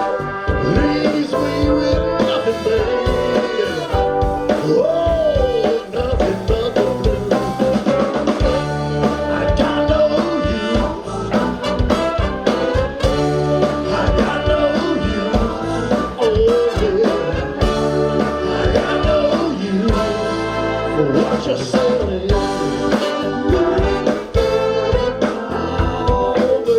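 Live band with a horn section playing, a wavering lead melody over drums and bass with a steady beat.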